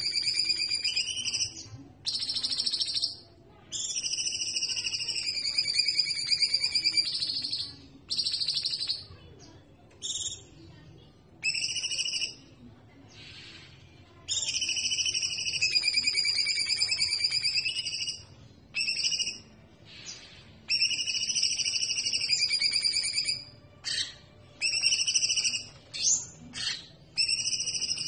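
Caged songbird singing long phrases of wavering, warbling whistles, broken by short pauses and a few clipped notes.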